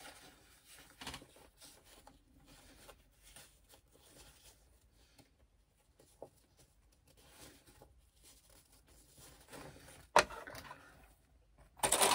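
Soft rustling of fabric and a cork-fabric bag being handled, with a few faint clicks as the folded pocket lining edges are fastened with sewing clips. A louder rustle about ten seconds in, and louder handling near the end as the bag is lifted.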